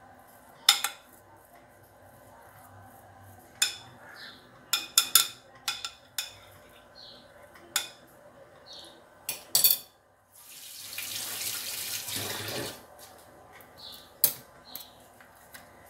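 Metal spoon clinking and tapping against a glass baking dish in a scattered run of sharp clicks while a mashed-potato mixture is spread and smoothed. Past the middle comes a steady rushing noise for about two seconds.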